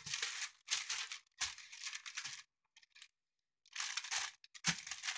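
A sheet of baking parchment rustling and crinkling as it is gripped and lifted, in about five short bursts with brief pauses between.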